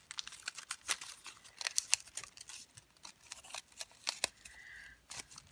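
Folded origami paper units crackling and rustling as they are handled and slotted into one another, in a run of irregular sharp crinkles.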